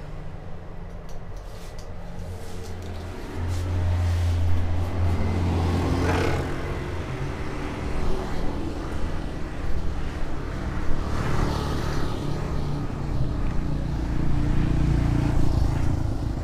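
Street traffic: motor scooter and car engines running and passing close by, with one vehicle going past loudest about six seconds in.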